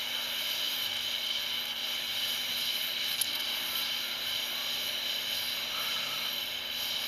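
Jeweler's gas torch burning with a steady hiss, its flame turned up near as large as it will go. A single faint click about three seconds in.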